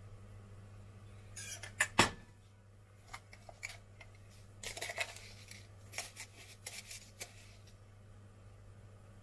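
A metal spoon handling diced rhubarb on puff pastry: scattered clicks and short scrapes, with one sharp knock about two seconds in, over a low steady hum.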